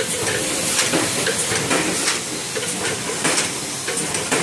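LH ZSY1 fully automatic bottle and tube screen printing machine running: a steady mechanical clatter with short, sharp hisses two or three times a second, typical of its pneumatic cylinders cycling.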